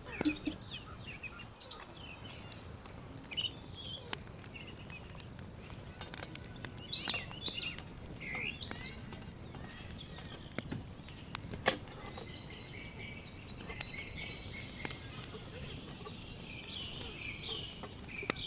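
Small birds chirping and twittering, with a few sharp knocks, one about seven seconds in and one near the twelve-second mark.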